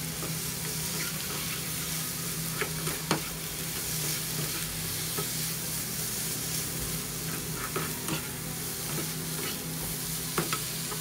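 Diced tempeh, coated in sweet soy sauce, sizzling in a nonstick frying pan as a nylon spatula stirs and turns it. A few sharp clicks of the spatula against the pan come about three seconds in and near the end.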